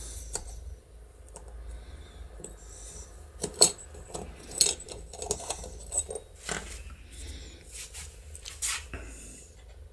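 Small window-handle parts, the die-cast metal housing and a plastic gear piece, clicking and clinking as they are handled, pulled apart and set down on a wooden workbench. A handful of sharp, irregular taps with a light metallic ring.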